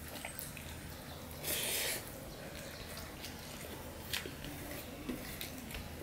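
Fingers mixing rice and curry on a stainless steel plate, making wet squishing sounds. A short hiss comes about a second and a half in, and a few light clicks sound near the end as the fingers strike the metal.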